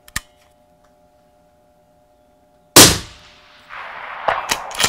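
A single suppressed rifle shot about three seconds in: one sharp report with a short fading tail. A few light clicks follow near the end.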